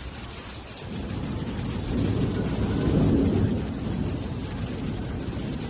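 Muddy floodwater rushing down a street as a torrent, a dense steady rumble that swells a little two to three seconds in.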